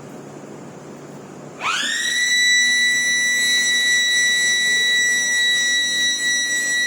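A warning siren starts about one and a half seconds in, its pitch sweeping quickly up and then holding one loud, steady high tone.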